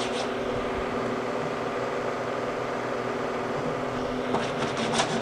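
Steadytech Mini 3D printer humming steadily while it holds the nozzle at a bed-levelling point, a hum with several even tones. A few light clicks and rustles come near the end.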